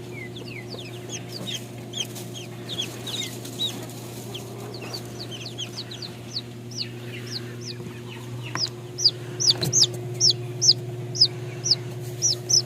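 Newly hatched Brahma chicks peeping: a string of short, high, downward-sliding peeps that get louder and come faster, about two or three a second, from roughly two-thirds of the way in. A steady low hum runs underneath.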